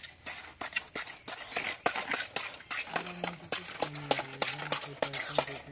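Irregular sharp clicks and scrapes of a mason's trowel working cement plaster. From about halfway a low voice is heard on and off in the background.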